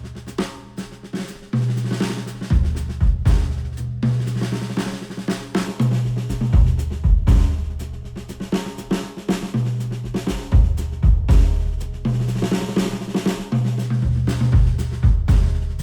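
Instrumental music with a full drum kit (snare, bass drum, hi-hat) over a bass line whose held notes change every second or two. It is played back through headphones and recorded with microphones at the earcups.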